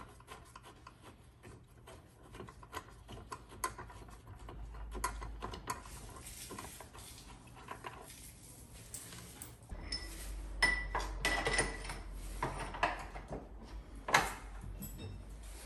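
Small metal clicks and rattles as a Brembo front brake caliper and its fittings are handled and fitted on a motorbike fork. In the later part the clinks grow louder and sharper, one with a brief metallic ring.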